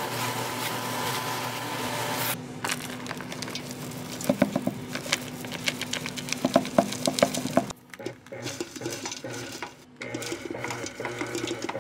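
A silicone spatula stirs sticky caramel-coated pecans in a bowl on a hot plate. About two seconds in, this changes to a stand mixer's flat beater working crumbly pecan sablé dough, with many rapid clicks and knocks against the bowl.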